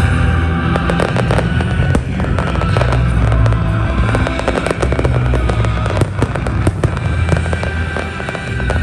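Fireworks crackling and popping in quick, dense succession over loud music with a steady low bass.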